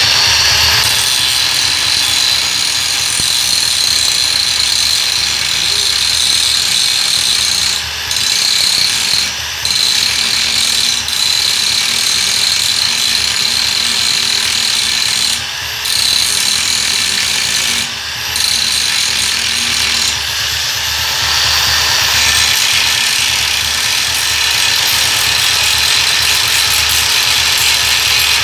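Hand-held angle grinder running with its abrasive disc pressed against a welded joint in thin stainless steel hollow section, grinding down the weld: a steady high whine over a loud gritty rasp. The sound dips briefly four times.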